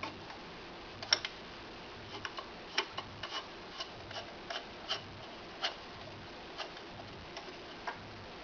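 Irregular light clicks and taps, one or two a second, from metal lightsaber hilt parts being handled and fitted together, the loudest about a second in.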